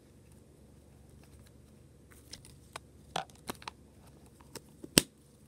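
Scattered small clicks and knocks of Pikmi Pop plastic toy cases being handled, closed and set down, starting about two seconds in, with the sharpest knock near the end.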